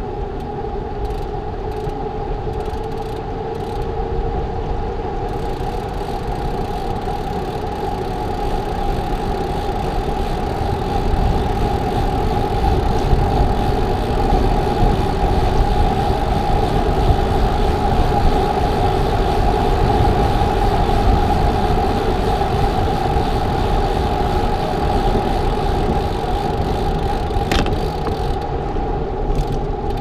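Chainless road bicycle coasting downhill: a steady rush of tyre and wind noise with a steady hum, growing louder through the middle as speed builds, then easing off.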